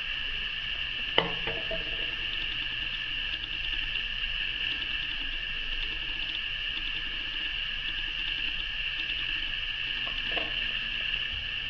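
A steady high-pitched background hum with a faint shimmer, and one sharp tap about a second in.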